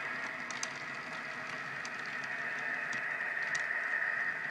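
HO scale model freight cars rolling along the track, a steady whir with scattered light clicks.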